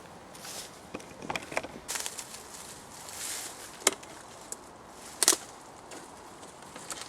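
Scattered sharp knocks and clacks with some rustling, as cut branches and wood are handled; the two loudest clacks come about four and five seconds in.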